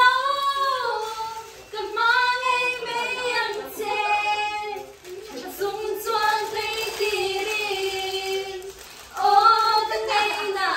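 Young women singing a song together in high voices, holding long notes in phrases, with short breaks between the phrases.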